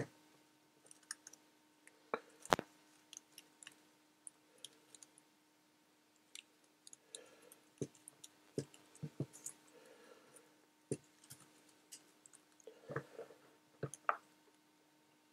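Faint, scattered clicks and taps of insulation-tester test leads and their plastic crocodile clips being handled and clipped onto a foil-wrapped screwdriver handle. The clearest click comes about two and a half seconds in, and there is a cluster of clicks near the end.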